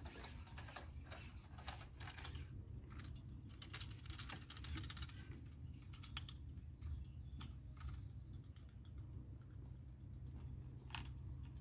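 Irregular small clicks and taps, thick for the first eight seconds and then sparse, over a steady low hum.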